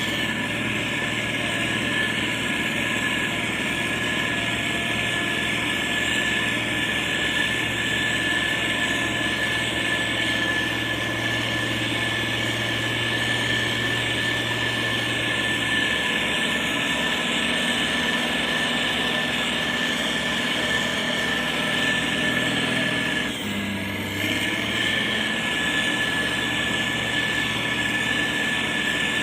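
Motor grader's diesel engine running steadily under work, with a steady high whine over a low hum. About two-thirds of the way through, the sound dips briefly and the low engine note shifts.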